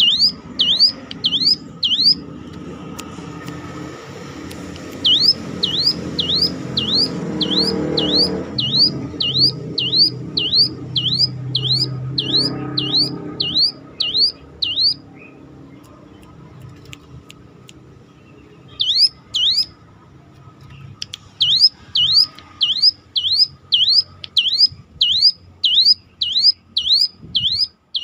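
Ciblek gunung (hill prinia) calling a fast run of siren-like whistled notes, about two a second, each dipping and then sweeping sharply up. The series stops for a few seconds several times. A low rumble runs underneath for a while in the first half.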